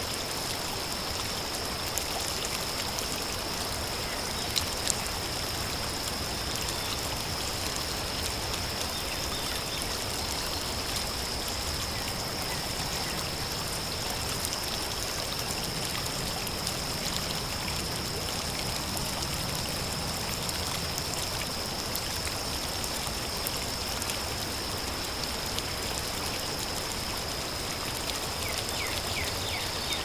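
Hoh River running over gravel: a steady, even rush of flowing water, with a thin steady high tone over it and two short ticks about four and a half seconds in.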